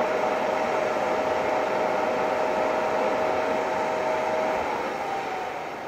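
Steady turbine rush and whine from a parked Embraer E-Jet regional airliner. The whine stops about four and a half seconds in, and the sound fades near the end.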